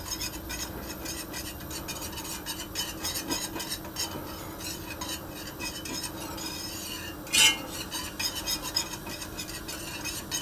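A whisk being worked briskly through a thick, creamy sauce in an enamelled pan, a steady run of quick scraping and tapping strokes against the pan. A louder clink of the whisk on the pan rim comes about seven seconds in.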